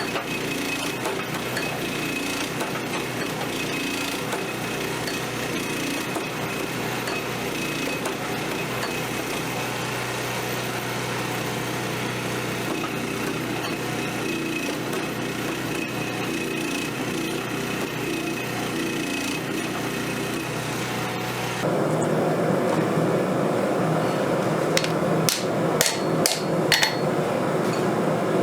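Steady machinery noise from forging equipment with a faint hum. After a cut about two-thirds through it turns louder, and near the end several sharp hammer strikes on hot steel ring out.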